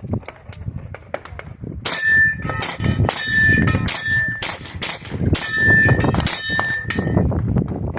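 A string of rapid handgun shots at steel targets, about a dozen in five seconds. Several hits are followed by the bright ring of a struck steel plate.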